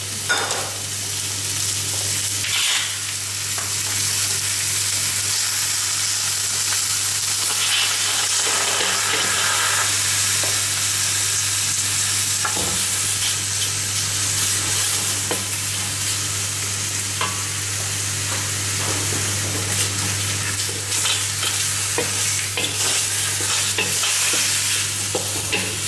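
Chicken pieces sizzling and frying in a hot steel wok, stirred and scraped with a wooden spatula through a pounded turmeric and bird's eye chili paste, with scattered clicks of the spatula against the wok. The chicken is being seared to dry off its water before the dish is simmered. A steady low hum runs underneath.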